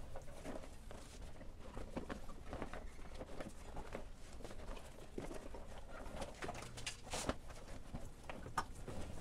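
Gloved hands handling a rubber inner tube inside a dirt bike tire: scattered soft rubbing and rustling with light taps, and one sharper tap about seven seconds in.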